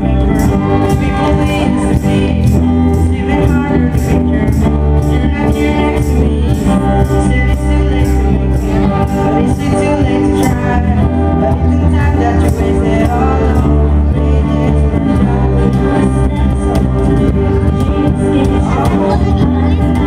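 Live acoustic band playing: strummed acoustic guitars with singing over them and a steady beat.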